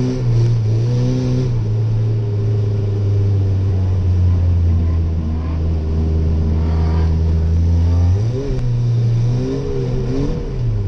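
Chevy S10 pickup's engine running hard in a low gear, heard from inside the cab. The note holds fairly steady, rises briefly about eight seconds in, then drops away near the end.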